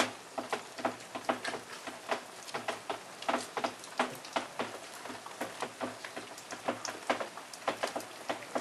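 Sleet falling on leaves, branches and the ground: irregular sharp ticks, a few each second, over a soft steady hiss.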